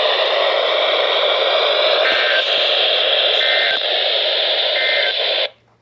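Steady static hiss from a NOAA weather radio receiver with no voice on the channel. Three faint short beeps come about a second and a half apart. The hiss cuts off suddenly near the end.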